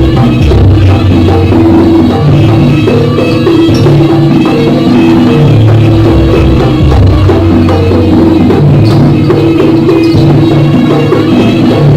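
Loud live jaranan gending from an East Javanese gamelan-style ensemble: steady drumming under held pitched notes that move in steps.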